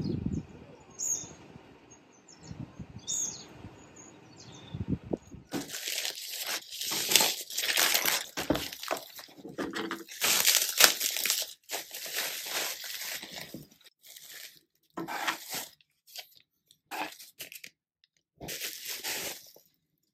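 Packaging being torn open and crinkled by hand: a run of rustling, tearing bursts starting about five seconds in, broken by a few short silences.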